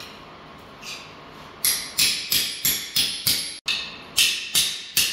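Hammer striking a flat pry bar wedged against a cracked floor tile to break it loose: about ten sharp metallic taps, about three a second, starting a second and a half in.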